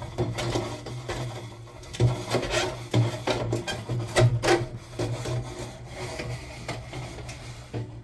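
Homemade chimney-cleaning rod scraping and rasping inside a wood stove's stainless steel flue pipe as it is worked through, in a series of irregular scraping strokes.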